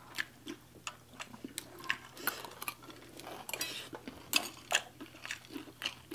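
Metal spoons and forks clinking and scraping on ceramic plates, in irregular light taps.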